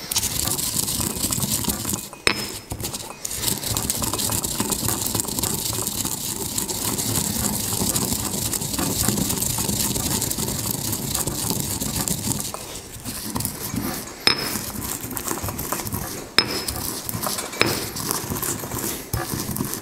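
Pestle grinding warmed whole spices, cardamom among them, in a black stone mortar: a steady gritty scraping and crushing, with a few sharp knocks of pestle on stone, most of them in the last third.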